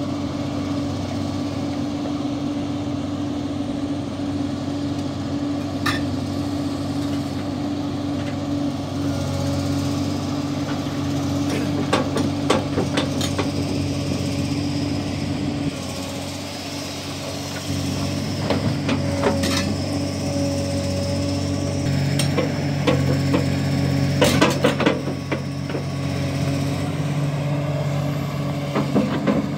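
Excavator diesel engine running steadily while its screening bucket digs and tips crushed stone, with sharp knocks and clattering of rock against the steel bucket, heaviest in a few clusters partway through and near the end.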